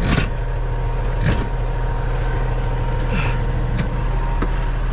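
Diesel semi-truck engine idling steadily, heard from inside the cab, with a couple of sharp clicks, one at the start and one about a second later.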